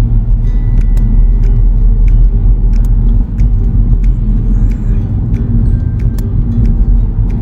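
Car driving, with a steady low road and engine rumble, and music playing faintly over it.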